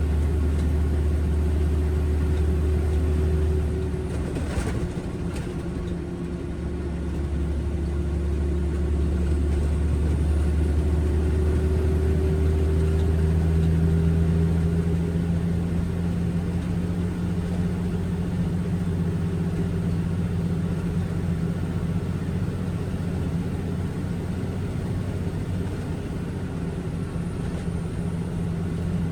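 Concrete mixer truck's diesel engine running steadily, easing off about four seconds in, then picking up again and rising slightly in pitch partway through.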